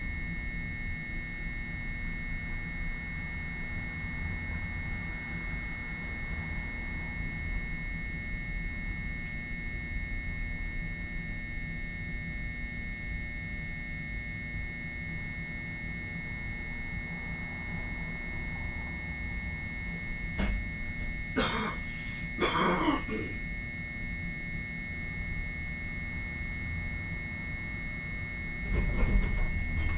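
Hankai Tramway streetcar running along the track: a steady low rumble with a constant faint high tone over it. Two short harsh clattering noises come about two-thirds of the way through, and the rumble grows louder near the end.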